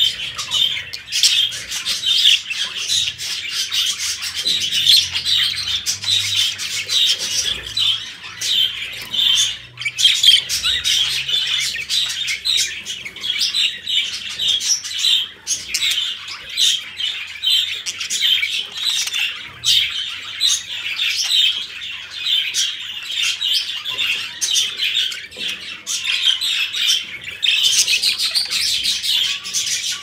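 Courting pair of budgerigars chattering nonstop, a dense run of rapid chirps, warbles and squawks, a little louder near the end.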